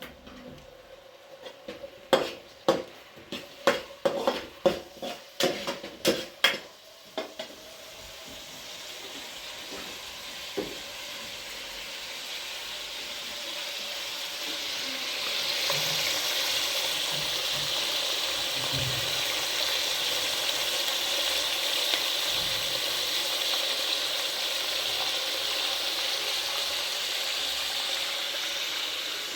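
About ten sharp knocks in quick succession, roughly two a second, followed by food sizzling in a hot pan, the sizzle building up and then holding steady.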